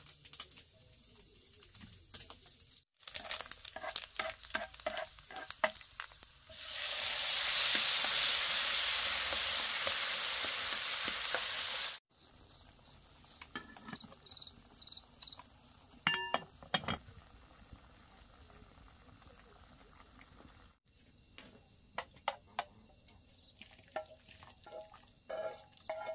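Food frying in hot oil in a pan: a loud, even sizzle starts suddenly and cuts off about five seconds later. Scattered light clicks and knocks of utensils come before and after it.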